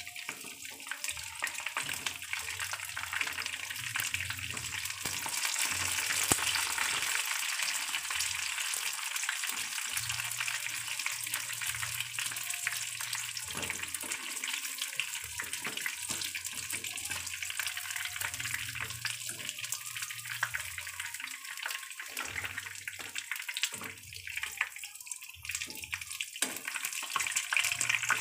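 Battered chicken pieces frying in hot oil in a pan: a steady, dense sizzle.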